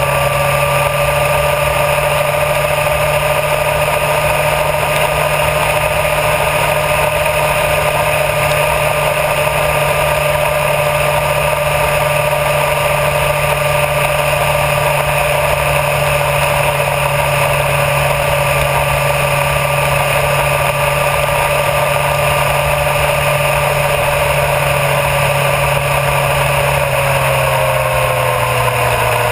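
Honda CBR1000RR Fireblade sport bike riding at a steady cruising speed, heard from a camera mounted by the front wheel: loud wind and tyre rush over a steady whine from the running engine. Near the end the whine drops slightly in pitch as the bike eases off.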